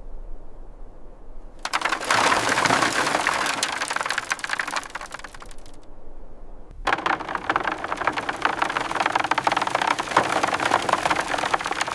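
Rapid, dense clicking and scraping of hand work on old wooden boards. It starts about two seconds in, breaks off for about a second near the middle, then carries on.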